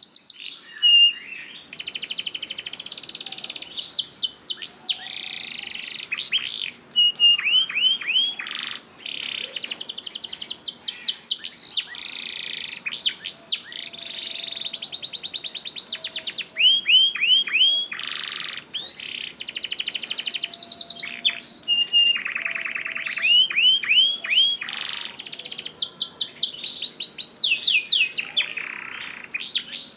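Domestic canary singing a long, unbroken song: fast buzzing trills alternating with runs of repeated downward-sweeping notes.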